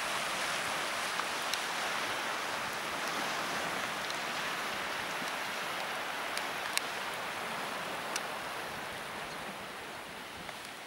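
Steady rushing hiss of surf and wind along a rocky shore, with a few faint clicks.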